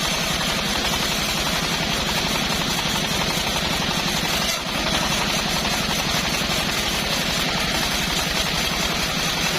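Engine-driven homemade bandsaw sawmill running with a fast, even engine beat, dipping briefly about four and a half seconds in.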